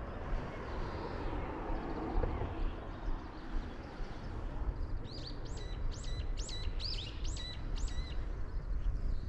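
A songbird calling a quick run of about six repeated high, sweeping notes, starting about five seconds in, over a steady low background noise.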